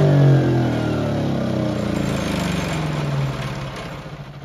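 Ryobi 2300 inverter generator engine running at high speed, its pitch sinking slowly as the engine slows. It fades out near the end.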